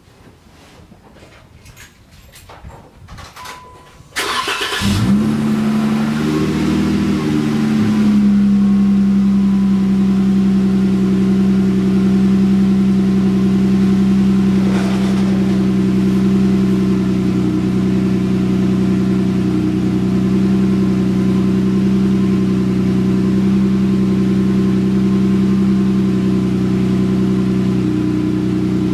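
2014 Jeep Wrangler's 3.6-litre Pentastar V6 cranked and started about four seconds in, flaring briefly before settling into a steady cold idle through a newly fitted aFe Hi-Tuck exhaust.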